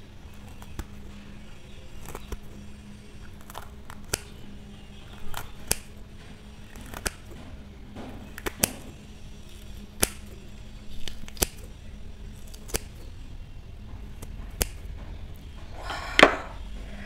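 Scissors snipping a fresh green chili into pieces: a sharp click of the blades about once a second, a dozen or so cuts in all. A louder, fuller sound comes near the end.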